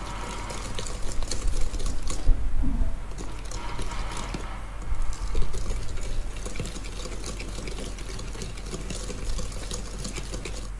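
Wire balloon whisk beating softened butter and powdered sugar by hand in a stainless-steel bowl: a steady wet swishing, with rapid light clicks of the wires against the metal.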